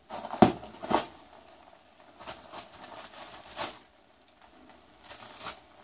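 Plastic oven roasting bag crinkling and rustling as a hand handles it in a baking dish, with two sharp knocks about half a second and a second in, followed by scattered lighter clicks and rustles.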